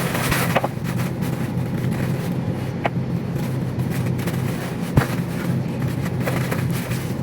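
A steady low hum, like a fan or motor running, with two light clicks, about three and five seconds in.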